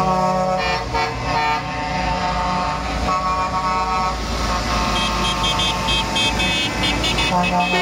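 Trucks' air horns honking in repeated blasts over the low rumble of passing diesel trucks. Several horn pitches overlap, and higher, quicker toots follow in the second half.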